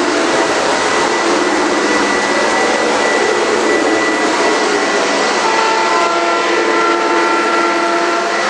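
O-gauge model freight train rolling past on three-rail track: a steady rumble of wheels and motors. About five and a half seconds in, several steady tones at different pitches join it and hold.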